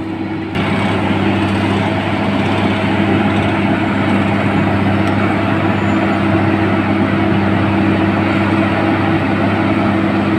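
Tracked asphalt paver's diesel engine running with a steady drone, louder from about half a second in.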